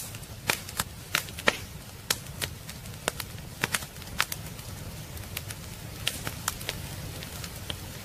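Wood fire crackling in a fireplace: irregular sharp pops and snaps, several a second, over a low steady rumble.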